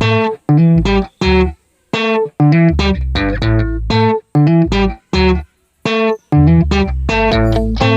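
Background music of plucked guitar notes over a bass line, coming in short bursts that stop abruptly several times for brief silences.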